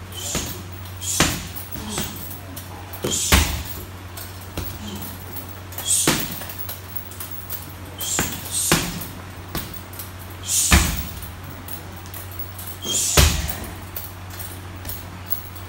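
Boxing-gloved strikes landing on a heavy punching bag: irregular combinations of sharp thuds, the heaviest four spaced a few seconds apart, over a steady low hum.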